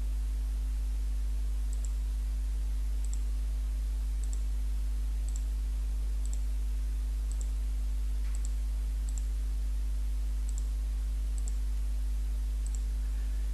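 Computer mouse button clicking, about a dozen single clicks spaced roughly a second apart, each fill of a shape with the Live Paint Bucket. A steady low hum runs underneath.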